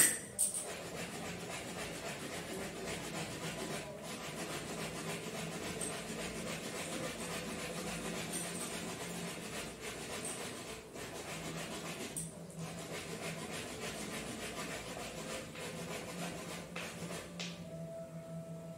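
Steady rubbing and scraping from hands working at puja items on the floor, over a low steady hum, with a sharp clink right at the start.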